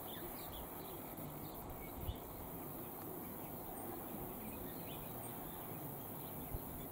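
Faint steady background ambience with a soft tap about two seconds in and another near the end, and two faint, short high chirps midway.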